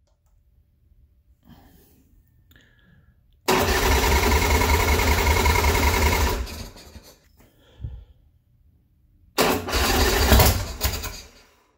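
A 2007 Big Dog Mastiff's carbureted S&S 117 V-twin cranking on its electric starter in two tries, about three seconds and then about two, with a short knock between them. It is a cold start attempt on a bike known as cold-natured, with its battery on a charger.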